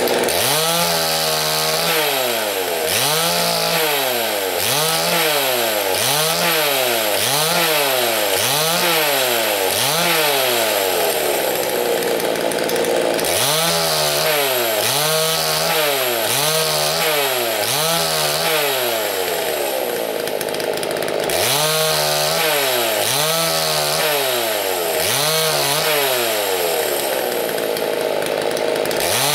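Chainsaw engine running, its pitch rising and falling in a regular cycle about once every second and a bit, in three runs with brief breaks about twelve and twenty-one seconds in.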